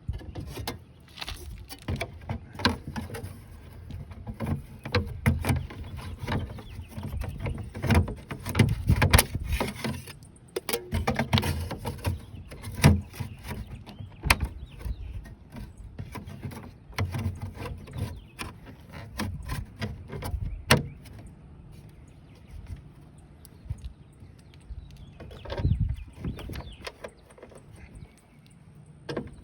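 Irregular clicks, knocks and rattles of hand work on the lift door latch: the metal latch plate and release cable being fitted inside the door. The knocking is busiest in the first two thirds and thins out near the end.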